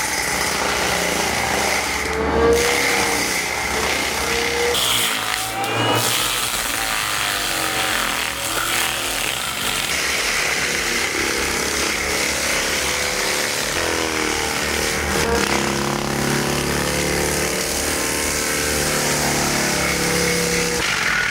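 Excavator-mounted forestry mulcher working, its engine and cutting drum running under load with the pitch rising and falling.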